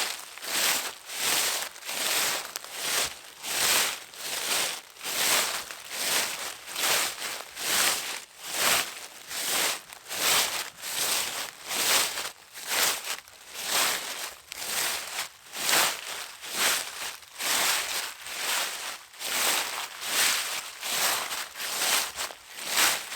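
Footsteps crunching through dry autumn leaves at a steady walking pace, each step a crisp rustle and crackle.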